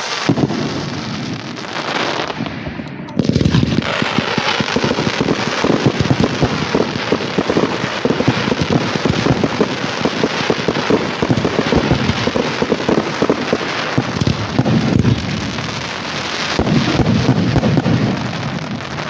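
Fireworks display going off: a dense, continuous run of rapid bangs and crackling pops, picking up abruptly about three seconds in, with heavier booms near the end.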